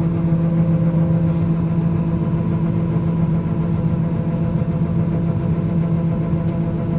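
Engine of a corn-harvesting machine running at a steady speed: a constant, even drone.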